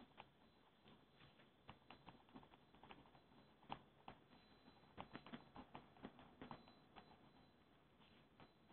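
Faint, irregular clicks and taps of a stylus writing by hand on a tablet, thickest in a flurry about five to six seconds in.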